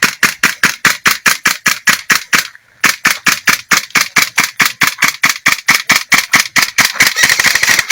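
Airsoft gun firing a rapid, steady string of shots, about eight a second, with a short break about two and a half seconds in; the shots come faster near the end.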